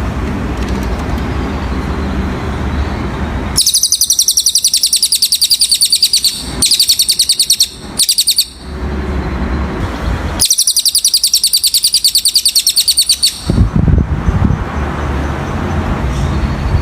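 Cililin bird song: a very high, rapid trill of fast repeated notes in long phrases, with two short breaks, lasting about ten seconds. It starts about three and a half seconds in and stops near the end. Before and after it there is a steady low rumble.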